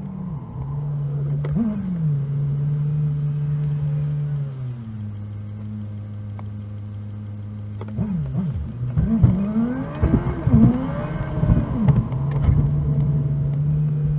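Car engine and road noise inside a moving car, sped up four times so the engine hum sits high and changes fast. The steady hum drops in pitch about five seconds in. From about eight seconds there is a run of quick rising and falling sweeps in pitch, and then the steady hum returns near twelve seconds.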